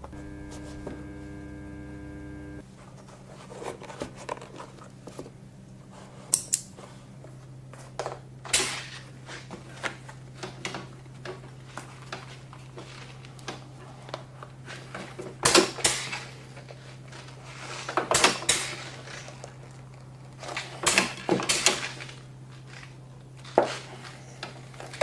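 Scattered clicks, knocks and scrapes of hand work on a shoe at a repair bench, irregular and in small clusters, over a steady low hum.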